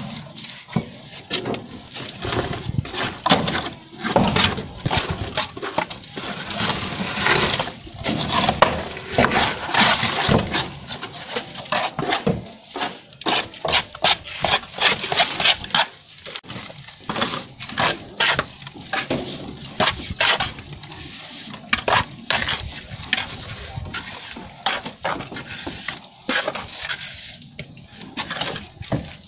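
Steel plastering trowel scraping and slapping wet cement mortar onto concrete: many short, irregular scrapes and knocks as mortar is scooped from the board and spread on the surface.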